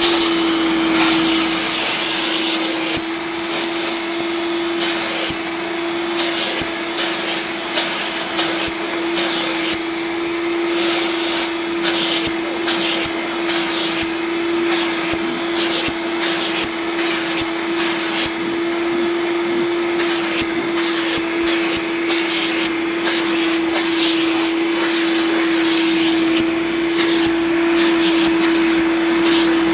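A 1998 Hoover Turbopower 2 900-watt upright vacuum cleaner running steadily with a constant motor whine, while short rushes of hiss come and go every half second to a second as it is worked over sawdust.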